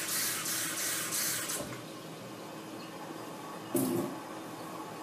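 Water running from a tap for about a second and a half, then shut off, while a measuring cup is filled for the rice; a single knock about four seconds in.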